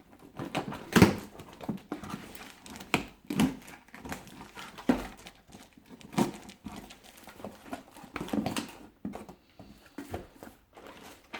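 A cardboard shipping package being torn and opened by hand: irregular tearing, rustling and knocks a second or so apart.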